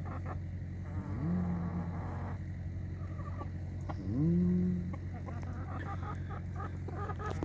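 Bielefelder chickens clucking softly against a steady close buzz, likely a fly. Twice, about a second in and again about four seconds in, a low call rises and then holds for about a second.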